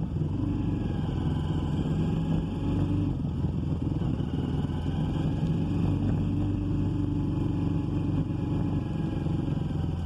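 Motorcycle engine running as it rides along a trail, its pitch rising and falling a little.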